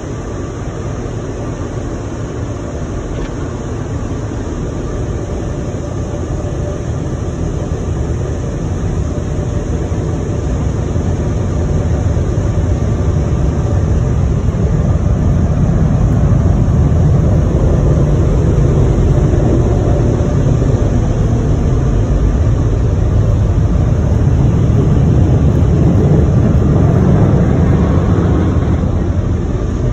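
Automatic drive-through car wash heard from inside the car: a steady low rushing of its water spray and blowers. It grows louder about twelve seconds in and eases slightly near the end.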